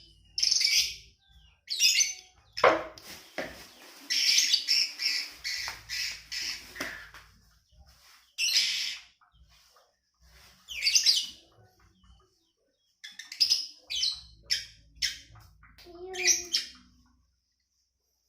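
Caged songbird singing a varied run of short chirps and quick whistled phrases with brief pauses between them. This is the mixed song of a bird that has picked up other species' songs, such as the sooty-headed bulbul, kacer and prinia.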